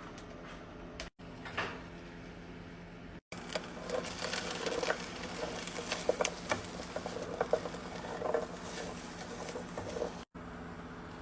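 Kitchen cooking noises over a steady low hum: a run of irregular sharp clicks, taps and scrapes, like utensils working food, between short edit cuts.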